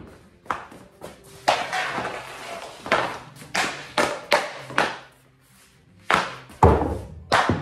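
Ice hockey stick shots: about ten sharp cracks as the stick slaps the shooting surface and strikes pucks, with pucks hitting the boards and net, and some scraping of stick and puck along the surface in between.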